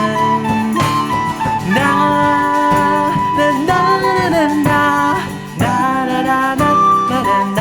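Country-folk band playing an instrumental break, acoustic guitar under a melody line of held notes that bend and waver.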